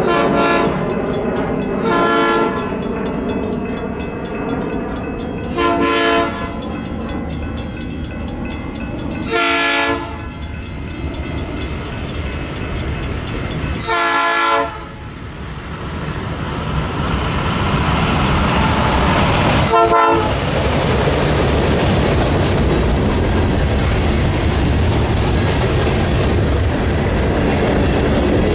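Union Pacific freight train approaching: the locomotive's horn sounds a chord in six blasts, the fifth the longest and the last one short. From about halfway the rumble and clickety-clack of the train's cars grow as they roll past close by.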